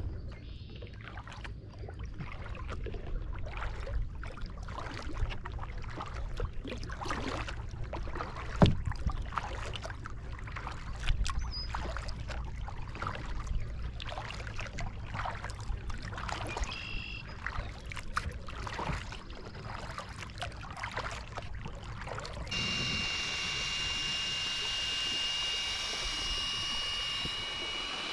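Kayak paddle strokes: irregular splashes and drips of water as the blade dips in and lifts out. About 22 seconds in, this gives way to a steady, louder motor whine with a high tone over rushing water as the motorized kayak runs under power.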